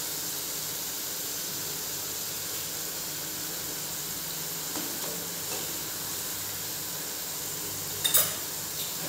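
Masala paste sizzling steadily in oil in a metal kadai, being fried until the oil separates from it. A short knock comes about a second before the end.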